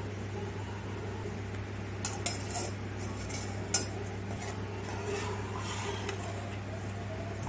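Steel spoon clinking and scraping against a steel bowl while mixing marinated fish pieces, with a few sharp clinks in the first four seconds and softer scraping after. A steady low hum runs underneath.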